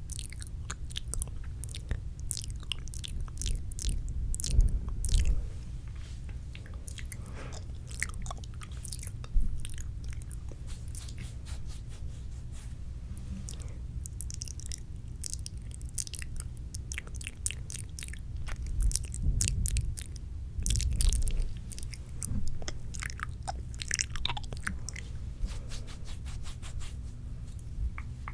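Wet, spitty mouth sounds right at the microphone: a dense run of small clicks and smacks, with a few louder low thuds.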